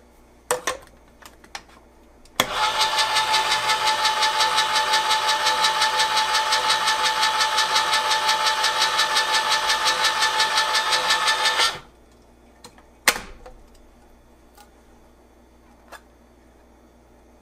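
Hamilton Beach Smooth Touch electric side-cut can opener running: its motor whirs with a steady whine and a fast, even pulse for about nine seconds as it turns the can one full rotation, cutting it open at the seam, then stops abruptly. Light clicks come as the can is set in before the motor starts, and a sharp click comes a little after it stops, as the can is released.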